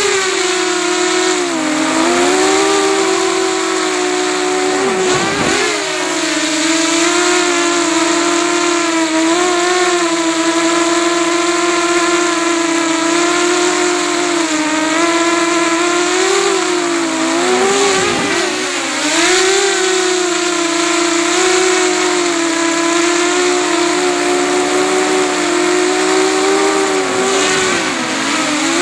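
Brushless motors and propellers of an FPV quadcopter whining, heard from a camera mounted on the quad, with a rushing hiss of air behind. The pitch mostly holds steady, but dips sharply and climbs back a few times.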